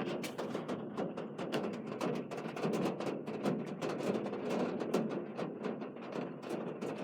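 Rain falling on a hard surface close to the microphone: many sharp, irregular drop taps a second over a steady hiss.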